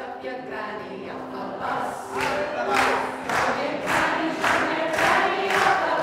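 A small group of women singing together to a ukulele. From about two seconds in, the audience claps along in time, about two claps a second.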